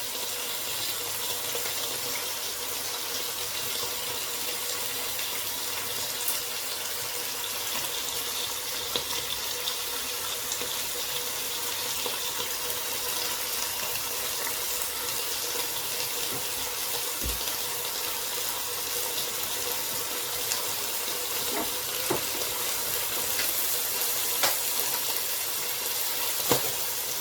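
Steady watery hiss of a pot of chicken boiling on the stove, with a few faint clicks near the end.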